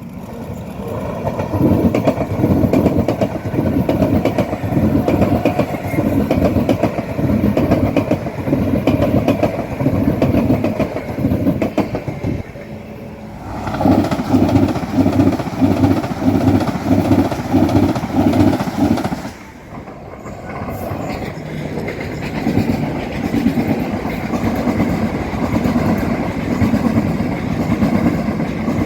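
MTR electric train running through the station, its wheels clattering over the rails in a quick regular rhythm. The sound drops away twice and comes back as another train is heard.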